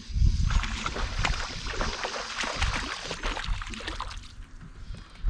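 Water sloshing and lapping against a small fishing boat, with scattered light clicks and knocks.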